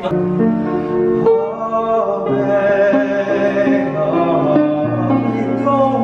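Upright piano playing held chords that change every second or so, with a man's voice singing along.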